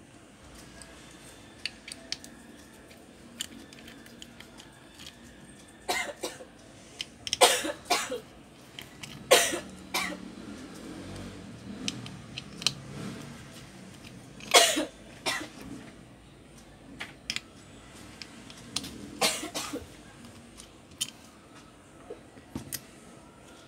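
Scattered small clicks and knocks, with a handful of louder sharp knocks a few seconds apart. They come from a 3.5-inch hard drive and a small screwdriver being handled on a rubber mat while the drive's controller board is unscrewed.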